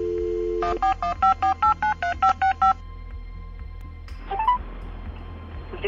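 Phone call audio: a brief steady dial tone, then about ten quick keypad (DTMF) tones as a mobile number is dialled, followed about four seconds in by a short rising three-note tone, the kind that comes before a 'number not reachable' recording.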